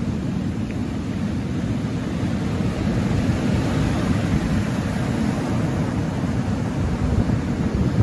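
Sea waves breaking and washing up a shingle beach: a steady rush of surf with a heavy low rumble, swelling as a wave breaks around the middle.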